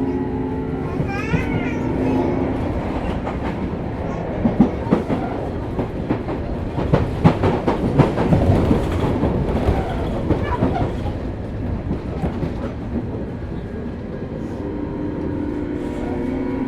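Sotetsu New 7000 series electric train running, heard inside motor car MoHa 7357, whose Hitachi GTO inverter-driven traction motors give an unusual, off-normal motor sound. Steady motor tones at first with a short rising inverter chirp about a second in, then wheels clattering over rail joints and points through the middle, and the motor tones coming back near the end.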